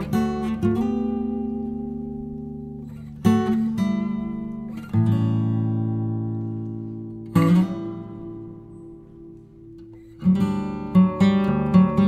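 Background music on acoustic guitar: a few chords strummed and left to ring out, then quicker, steady strumming starting near the end.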